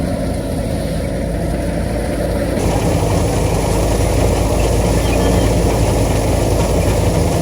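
Wheat threshing machine running steadily, a continuous engine-driven drone. It grows louder and hissier about two and a half seconds in.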